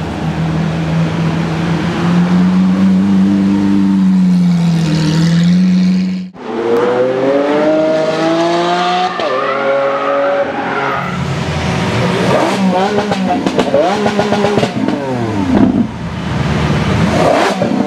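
The V12 of a Hamann Lamborghini Aventador LP760-4 Nervudo with a straight-piped, catless exhaust, running at low revs as the car drives past, its pitch rising and falling a little. About six seconds in it cuts off abruptly, and Lamborghini Aventador V12s are heard accelerating and revving hard, with repeated rising and falling revs.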